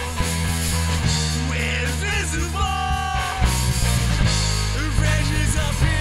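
Live punk rock band playing loud and steady: electric bass, electric guitar and drum kit.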